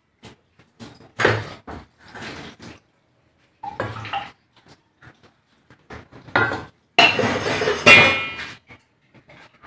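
Stainless-steel bowl and a wide steel flour tray clinking and scraping while flour is worked by hand into dough: scattered clinks and rustles, loudest in two bursts near the end, the second with a brief metallic ring.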